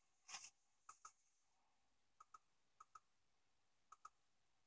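Faint clicks of a computer mouse button, four presses at uneven intervals, each heard as a quick press-and-release double click. A short rustle comes just before the first click.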